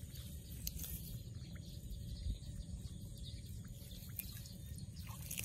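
Faint outdoor field ambience: a low steady rumble with a few faint scattered clicks.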